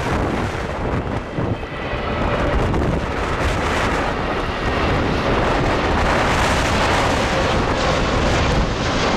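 Jet engines of an Airbus A320neo on final approach, growing louder as it passes, under heavy storm wind buffeting the microphone.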